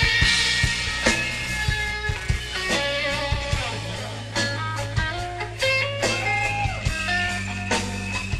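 Live rock band: an electric guitar plays a single-note lead line with bent notes over sustained bass notes and drums.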